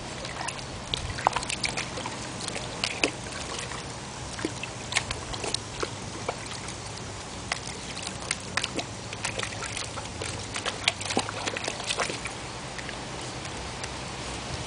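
A puppy pawing and splashing in a plastic tub of water, with irregular splashes and sloshes, several a second at the busiest moments.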